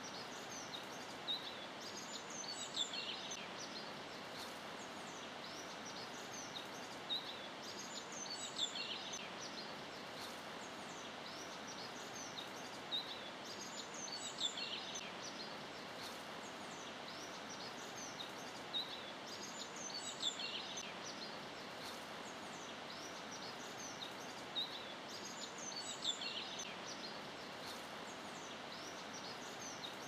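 Birdsong ambience over a steady hiss: a short cluster of high bird chirps comes back at the same spacing about every six seconds, like a looped nature-sound track.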